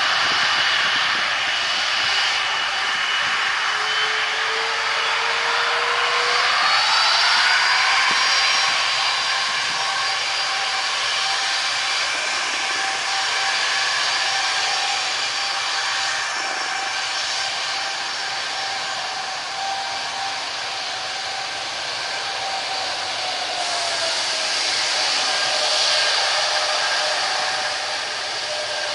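Airbus A330 twin-jet engines running as the airliner taxis and turns onto the runway: a steady rushing noise with a whine that rises about a quarter of the way in as thrust is added, then holds steady, one tone falling again near the end.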